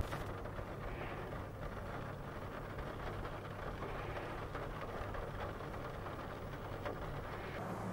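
Rain on a car windscreen, with faint scattered taps over a low, steady engine hum.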